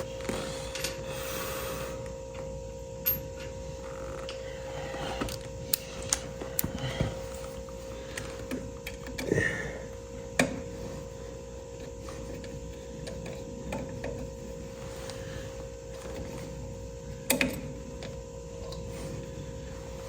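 Scattered small metal clicks and taps of hand tools working at a bent, half-stripped screw in a tractor distributor, with a steady hum underneath.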